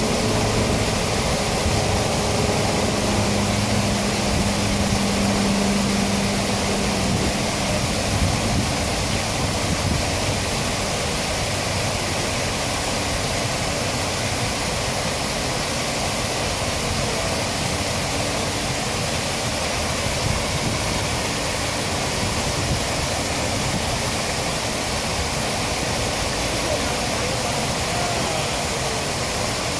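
Water pouring down a man-made waterfall in a steady, unbroken rush. A faint low hum is mixed in and dies away after the first several seconds.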